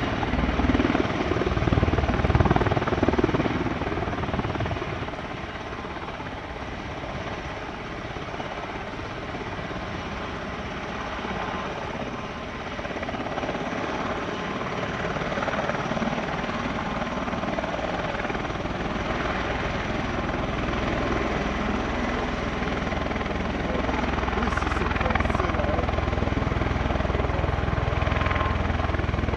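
Boeing CV-22B Osprey tiltrotor running in helicopter mode, its twin turboshaft engines and proprotors making a steady rotor and turbine noise as it lifts off and moves away. The noise is loudest a couple of seconds in, eases through the middle, and a deep rumble builds again in the last third.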